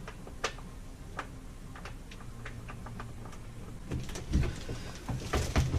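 Scattered light clicks and taps of toilet parts and hardware being handled, with a few heavier low thumps about four seconds in as the toilet is set down for aligning.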